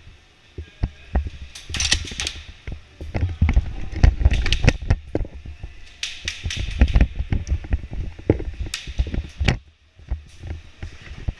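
Airsoft guns firing in irregular bursts of sharp cracks, mixed with knocks and clatter. The densest bursts come a few seconds in and again just past the middle.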